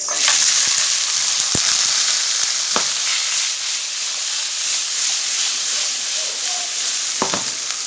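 Food dropped into hot oil in a pan, starting to sizzle suddenly and loudly and going on steadily, with a few sharp taps of a cooking utensil against the pan.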